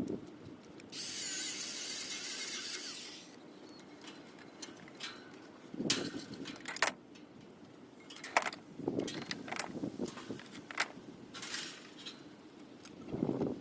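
A loud hiss lasting about two seconds, followed by scattered metallic clanks and knocks from parts being handled while a harvester is taken apart.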